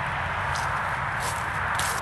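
Steady outdoor background noise with three short crackles, about half a second in, a second later and near the end.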